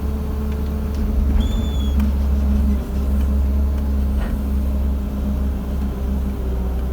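Heavy diesel engine running steadily at a constant low speed, a deep even hum with no revving.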